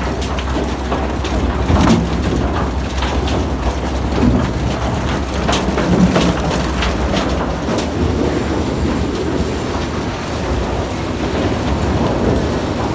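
A load of cassava roots tumbling and sliding out of a tipped truck bed in a continuous clattering rumble, with scattered knocks and a steady low machine drone underneath.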